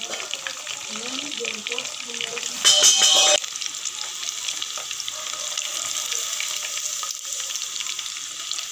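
Marinated chicken pieces deep-frying in hot oil: a steady, dense crackling sizzle, with one louder burst lasting under a second about three seconds in.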